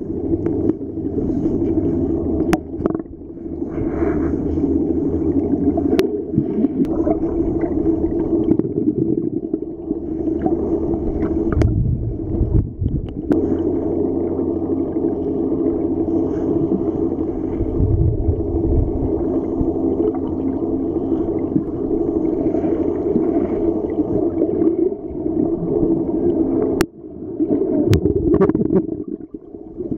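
Underwater sound picked up by a submerged camera: a steady, muffled low drone with water swishing and gurgling, and a few sharp clicks scattered through it.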